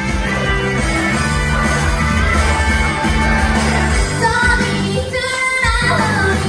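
Idol pop song played loud over a stage sound system with a steady beat; sung vocal lines come in about two-thirds of the way through.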